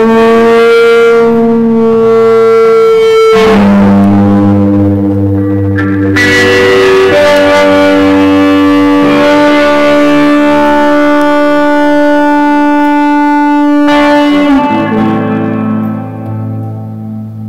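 Live band music: long held chords that change every few seconds, getting quieter near the end.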